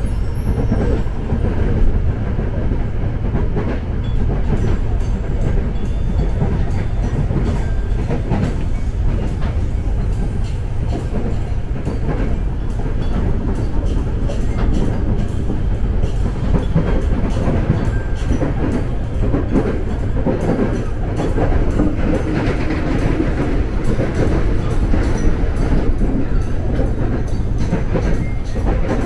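KRL Commuter Line electric train running along the track: a steady low rumble with many short clicks of the wheels over the rails.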